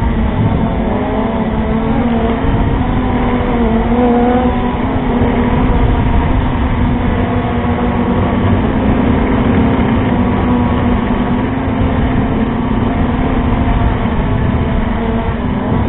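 FPV drone's motors and propellers whining steadily as heard from its own onboard camera, the pitch wavering up and down over a rumble of wind noise.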